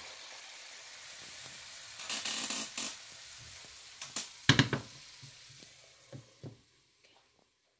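Stir-fried vegetables sizzling faintly in a frying pan with the heat off, with a brief louder sizzle about two seconds in. Then the pan knocks on the stovetop as it is moved by its handle, and a glass lid is set on it with two light clinks near the end.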